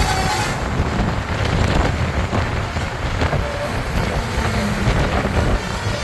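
Road vehicle noise: a steady low engine and road rumble with wind buffeting the microphone.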